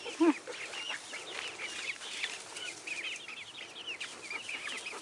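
Chickens in a pen calling: a steady run of short, high peeps, one after another, with one louder, lower call about a third of a second in.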